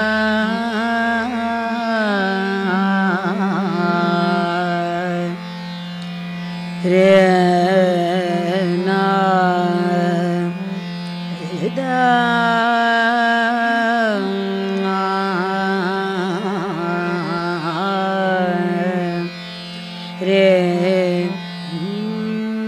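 Female voice singing a slow vilambit Hindustani khayal, holding long notes that slide between pitches and break into quick wavering ornaments, over a steady drone.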